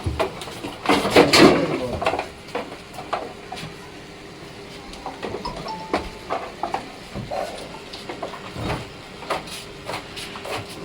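Clattering knocks and rattles as a large ram is handled and led out of its pen, loudest in the first two seconds, then scattered lighter knocks and clicks over a faint steady hum.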